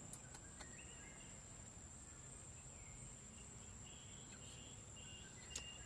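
Faint forest ambience: a steady high-pitched insect drone, with a few short, faint chirps and small clicks.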